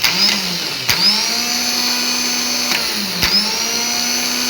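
Car starter motor running free on the bench: it is switched on a few times, each time with a sharp click and a whine that rises in pitch and settles into a steady high hum. It turns freely, its stuck carbon brushes freed and oiled.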